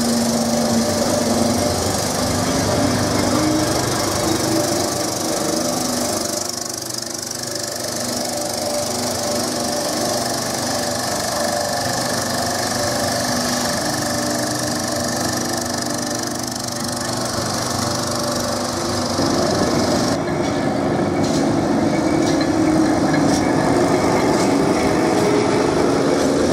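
Heritage electric trams running on street rails: a steady motor and gear whine over a rattling rumble, with wheel squeal. Near the end the sound changes to a fuller, louder rumble.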